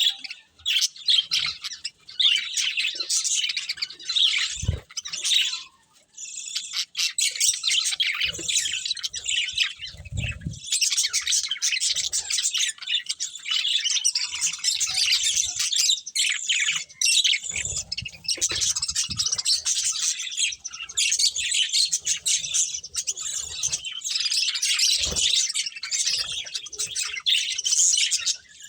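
A flock of budgerigars chirping and chattering nonstop, dropping briefly about six seconds in, with a few short low thuds mixed in.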